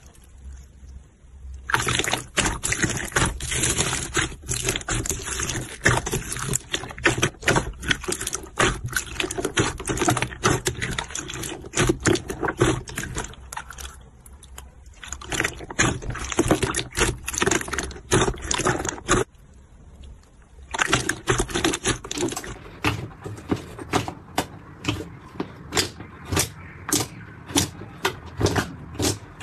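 Hands squeezing and kneading clear slime mixed with foam beads, making wet, sticky squelching and dense crackling and popping, with short quieter pauses between handfuls. Near the end, thicker slime is pulled and squeezed, popping at a steady rate of about two pops a second.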